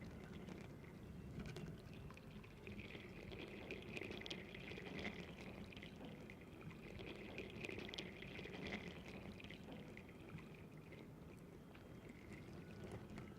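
Faint, steady trickling of liquid, with many small clicks and ticks throughout.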